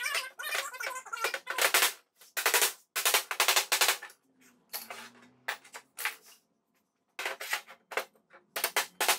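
Hammer blows driving laser-cut steel ribs into the slotted 1/4-inch steel plate of a weld-table top. The blows come in quick runs of several strikes with short pauses, and a pause of about a second near the middle.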